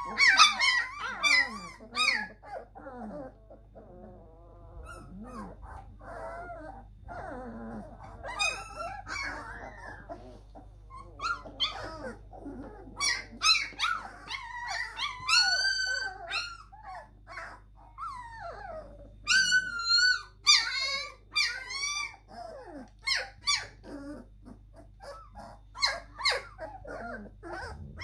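A litter of three-week-old German Shepherd–Labrador cross (Sheprador) puppies whining and squealing: many overlapping high-pitched, wavering cries, some short and some drawn out.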